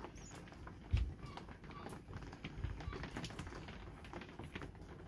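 Pencil scratching as it traces around a bowtie template on a wooden board, with light taps and one dull knock about a second in.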